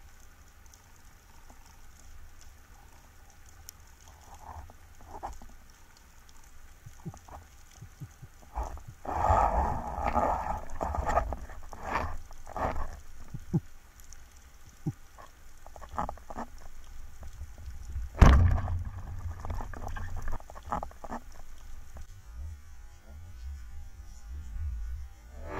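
Underwater sound picked up by a camera housing on a speargun: a low rumble with scattered sharp clicks and crackle, busiest from about nine to thirteen seconds in, and one loud sharp knock about eighteen seconds in.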